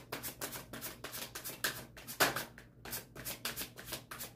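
Deck of tarot cards being shuffled by hand in an overhand shuffle, cards pulled off the top of the deck in a quick, even run of light slaps and flutters, about five a second.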